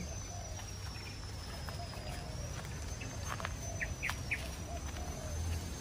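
Outdoor ambience: a low steady background with a thin high tone held throughout, and three short bird chirps in quick succession about four seconds in.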